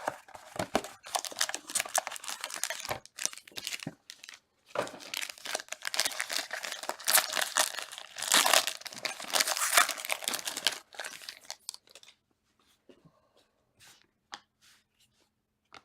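Sealed packaging of a Topps Tier 1 baseball card box being torn open and crinkled, a dense run of ripping and crackling for about eleven seconds. It then gives way to a few faint clicks and rustles.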